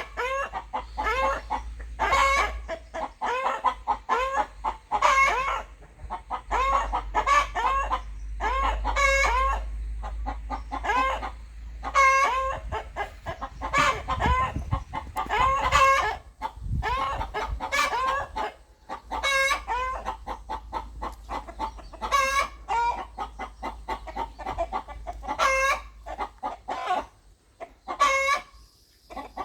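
Rooster clucking: a long run of short, pitched clucks, one to two a second, with a brief lull near the end.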